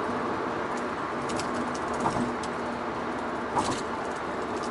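Steady road and wind noise inside the cabin of a high-mileage 2004 SM5 LPG sedan cruising at about 100 km/h, with a constant low hum underneath and a few faint clicks. It mostly reads about 74 dB on a sound-level meter.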